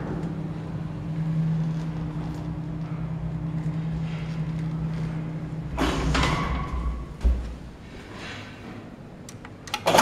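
Old birdcage Otis elevator: a steady low hum while the car runs for about six seconds, then a metallic rattle and a single sharp clunk about seven seconds in. A few quick clicks near the end as a floor button is pressed.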